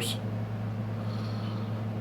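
Steady low electrical hum with faint background noise: room tone.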